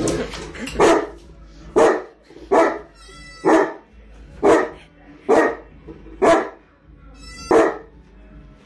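Saint Bernard barking: eight single barks, spaced about a second apart.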